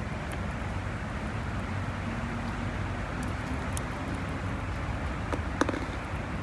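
Steady low rumble of strong wind buffeting the microphone, with a few faint clicks in the second half.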